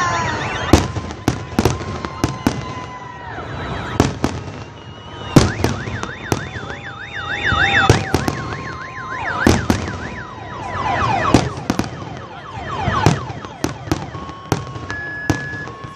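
Fireworks bursting in a rapid series of sharp bangs, with whistling shells gliding down in pitch. A car alarm warbles in the middle and beeps in two alternating tones near the end.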